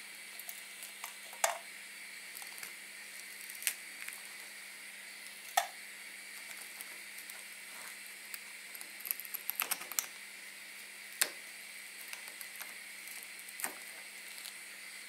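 Rosin flux melting in the metal tub of a soldering-tip cleaner over a gas flame: a steady hiss with a few sharp pops and crackles, and a quick run of small clicks about nine to ten seconds in.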